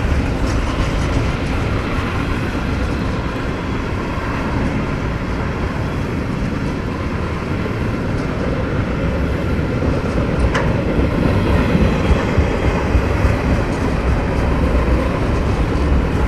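Double-stack intermodal container train rolling past, its steel wheels running on the rails in a steady loud rolling noise, with a single sharp click about ten seconds in.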